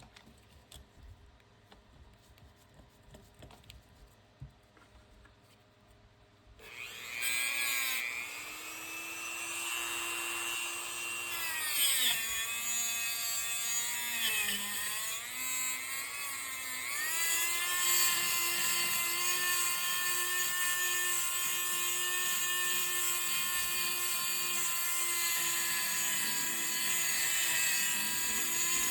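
Faint handling clicks, then about seven seconds in a small high-speed motor tool switches on and runs with a high whine. Its pitch dips and wavers for several seconds, as under load, then holds steady.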